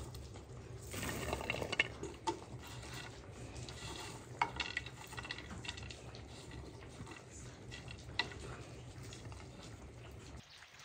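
A utensil stirring food frying in a pan, with a few sharp clinks of metal against the pan.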